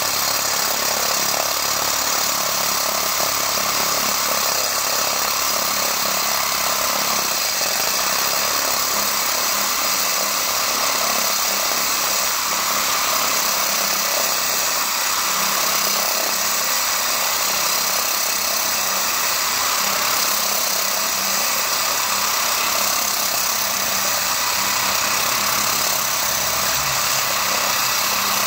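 Angle grinder converted to a core drill, its motor running steadily under load as the core bit grinds down into a concrete slab.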